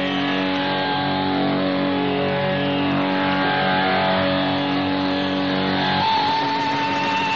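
Instrumental music with plucked strings over a steady low drone, from an All India Radio shortwave broadcast heard through a portable receiver, with the thin, band-limited sound of shortwave AM. About six seconds in the drone stops and a single wavering high note is held.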